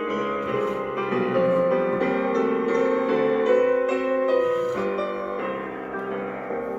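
Piano music, a gentle melody over chords, getting slightly softer in the last couple of seconds.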